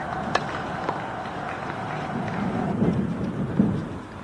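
Outdoor ambience with wind rumbling on the microphone, a sharp knock about half a second in and a fainter one a moment later.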